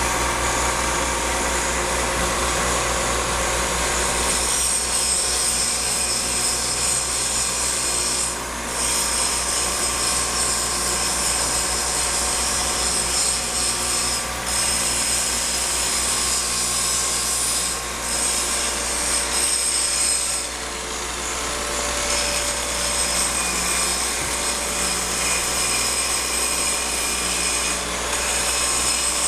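Steady running noise of machine-shop machinery, with high steady whining tones over a continuous hiss. The high tones drop out briefly about four times partway through.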